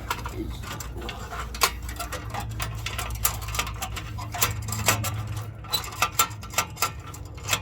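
Irregular metallic clicks and taps of the Cat Clamp's cable being threaded around the catalytic converter and exhaust, with several sharper knocks near the middle and towards the end, over a low steady hum.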